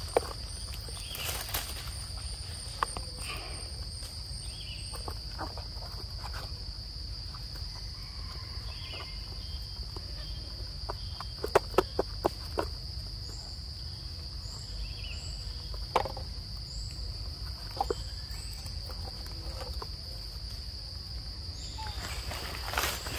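Steady high-pitched insect drone, with scattered sharp clicks and rustles from monkeys moving in dry leaf litter, a quick cluster of clicks about halfway through.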